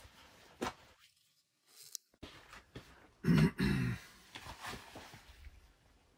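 A person clearing their throat, two short rough bursts about three and a half seconds in, with a faint click and light handling noise around it.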